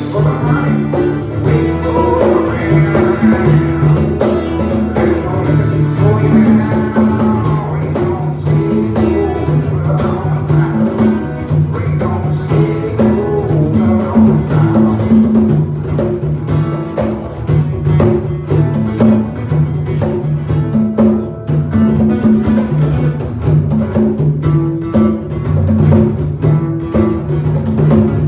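Live acoustic band: two acoustic guitars strumming chords in a steady rhythm, with congas played by hand.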